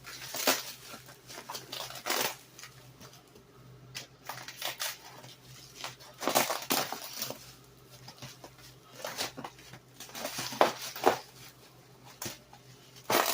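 Packing material being handled and shoved around, rustling and crunching in irregular bursts.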